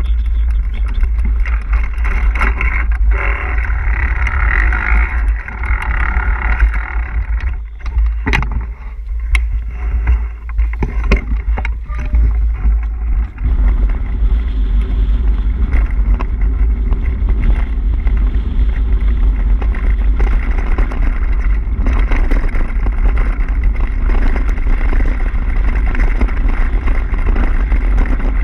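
Mountain bike riding over a dirt and gravel track: a steady low rumble of wind on the microphone mixed with tyre noise, with a run of sharp knocks and rattles from bumps in the middle.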